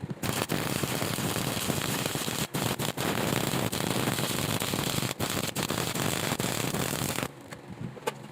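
Stick welding arc crackling steadily for about seven seconds, with a few momentary breaks, then stopping abruptly.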